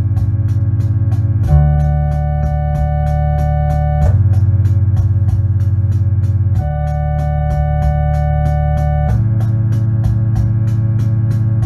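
Lo-fi electronic organ (Electone) music: held chords that change about every two and a half seconds, over a steady ticking beat of about four a second.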